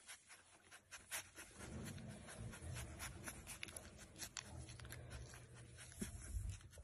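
Faint handling noise as a yellow Labrador puppy is petted on a towel: scattered scratchy clicks, with a low rumble starting about two seconds in and easing off near the end.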